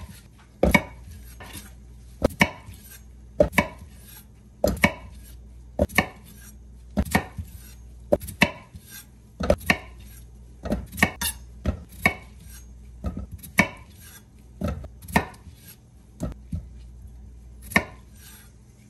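Kitchen knife cutting peeled potatoes in half on a wooden cutting board: a sharp knock of the blade against the board about once a second, at an uneven pace.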